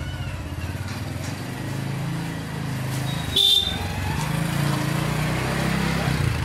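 Motorcycle engine running steadily in a street, with one short sharp high-pitched sound a little past halfway.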